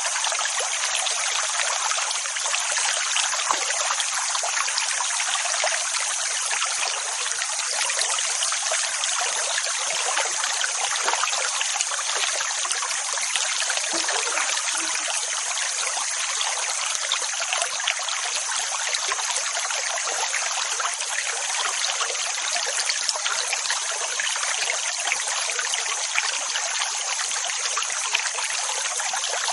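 Continuous rushing, trickling water: a dense, steady hiss that never rises and falls as single waves would.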